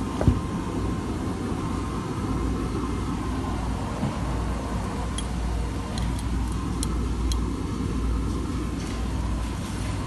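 Laundrette washing machines and tumble dryers running: a steady low rumble with a faint hum. A sharp knock comes just after the start, and a few faint ticks come in the second half.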